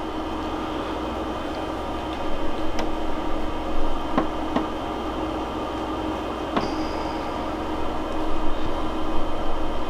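Steady hum of the egg incubator's fan, with a few light clicks as plastic queen cell cups are pulled off a wooden cell bar and pressed into the incubator's foam tray.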